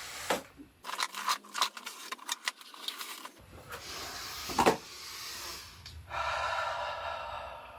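The cardboard box of a Kreg 720PRO pocket hole jig being opened: a run of clicks and cardboard rustling, a knock about halfway through, then a longer scraping, tearing noise near the end.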